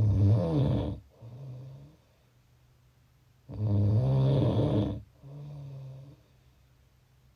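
Snoring in a slow, even rhythm: two loud, rasping snores about three and a half seconds apart, each followed by a shorter, quieter breath sound.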